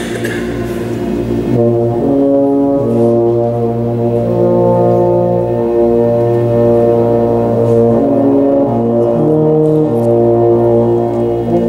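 A brass band, trombones among them, playing slow held chords that change every second or two.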